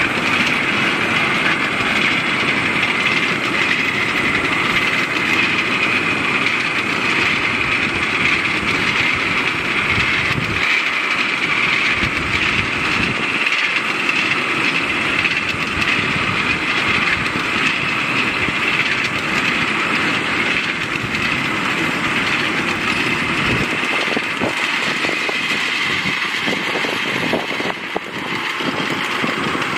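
Ride-on miniature railway freight cars rolling past on the track, a steady rolling noise that eases in the last several seconds, when a string of sharp clicks from wheels passing over rail joints comes in.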